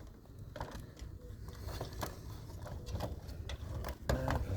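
Irregular clicks and light knocks of hand tools and plastic parts being handled while the screws are taken out of a robot vacuum's plastic housing.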